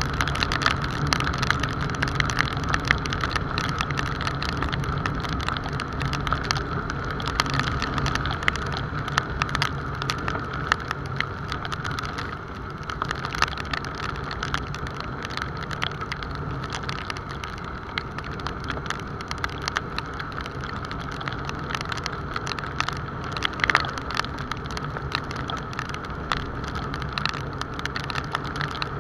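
Motorcycle riding in the rain: a steady engine drone under the hiss of wet road and wind, with many raindrops ticking against the handlebar-mounted camera.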